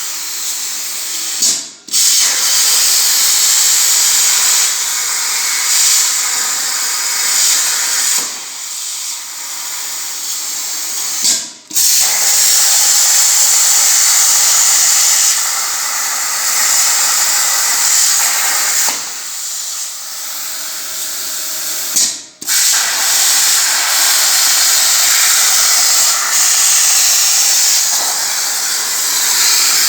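CNC plasma cutter's torch hissing loudly as it cuts out a sign. The hiss drops out suddenly and briefly three times, about ten seconds apart, then carries on.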